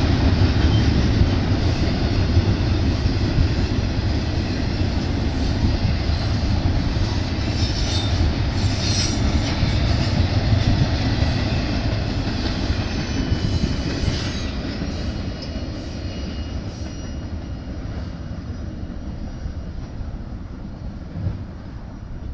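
Double-stack intermodal freight cars rolling past on the mainline: steady wheel-on-rail rumble that fades as the end of the train goes by and pulls away. A brief high wheel squeal comes about nine seconds in.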